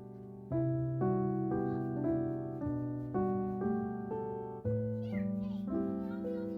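Slow piano background music, one held note or chord after another. About five seconds in, a short falling cry sounds over it, with a brief wavering call after.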